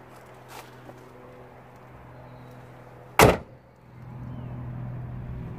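Bonnet of a 2006 Land Rover Discovery slammed shut: one sharp, loud thump about three seconds in. A steady low hum follows from about four seconds.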